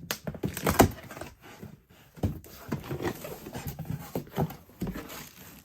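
Rummaging in a cardboard box of packed devices: a string of irregular knocks and clatters with rustling in between, the loudest knock just under a second in.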